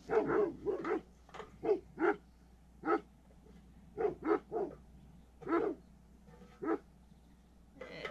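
A dog barking repeatedly: about a dozen short barks at uneven intervals, some in quick pairs.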